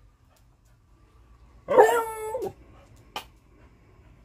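A hungry beagle gives one loud, drawn-out whining cry about two seconds in. A short sharp knock follows about a second later.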